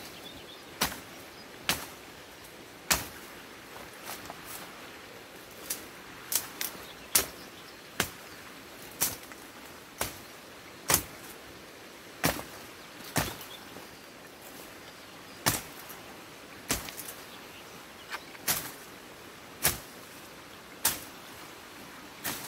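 Sharp cracks and snaps of sticks and branches breaking as a beaver dam is pulled apart by hand, about one every second and unevenly spaced.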